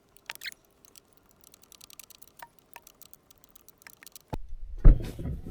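Faint, scattered metallic clicks and ticks of hand tools on a hydraulic hose fitting being unscrewed. About four seconds in, a louder low clatter and thump of metal parts being handled.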